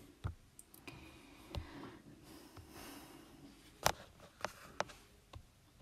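Quiet room with a few faint light clicks and taps, the loudest nearly four seconds in, and a soft breath through the middle.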